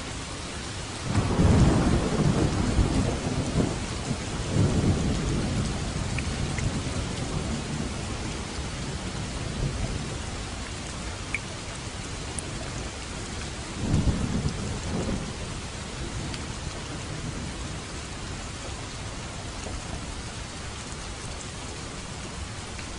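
Steady rain with thunder: a loud low rumble breaks about a second in and rolls on for several seconds, and a shorter rumble comes a little past the middle.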